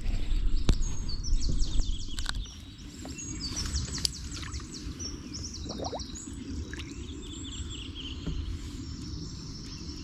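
Small birds chirping and singing over and over, with a low rumble that drops away about two and a half seconds in.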